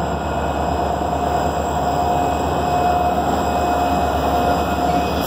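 Freight train's diesel locomotives passing close by at a grade crossing, engines running with a steady rumble and a steady high tone above it.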